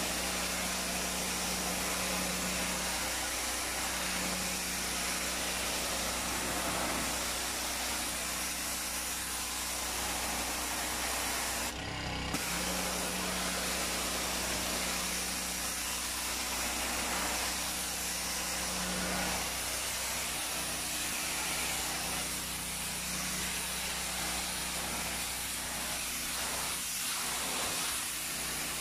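Ferrex petrol pressure washer running steadily: the engine's drone under the hiss of the high-pressure water jet striking a pebble-aggregate floor. The sound breaks off briefly about twelve seconds in.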